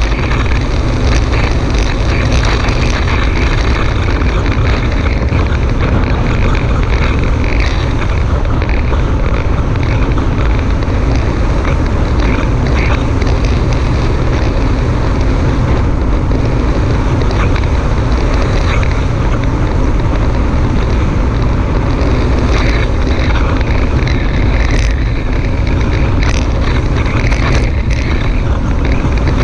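Wind buffeting the microphone of a GoPro on a moving bicycle: a loud, steady low rumble, with occasional light clicks and knocks.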